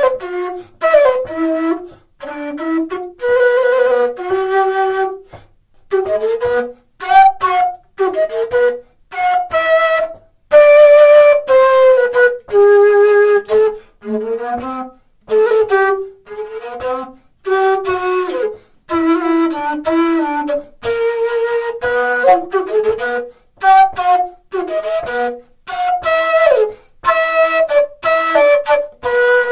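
Mamaquena, a low quena in G with hardwood inserts and two keys, played as a melody of short phrases separated by brief gaps.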